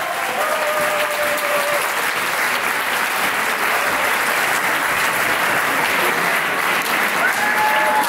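Audience applauding steadily, with a few voices calling out over the clapping near the start.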